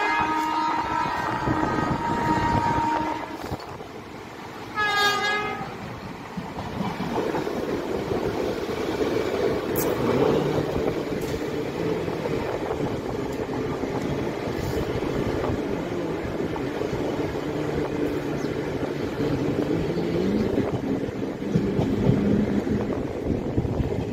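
Train horn: one long blast held until about three seconds in, then a short second blast at about five seconds. After that comes the steady rumble and clatter of the train running along the track.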